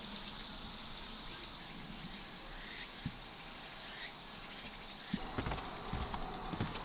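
Faint steady chorus of summer insects, with a run of soft low thumps starting about five seconds in.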